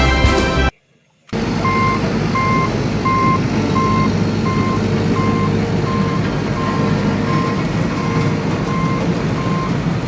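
Vehicle reversing alarm beeping steadily, about twice a second, over a steady engine rumble, typical of a truck or backhoe backing up. A short stretch of music stops just before, then there is a brief silence.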